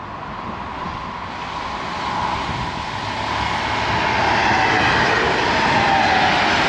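A train approaching and passing, its rushing noise growing steadily louder over the first few seconds and then holding, with a whine that slowly falls in pitch.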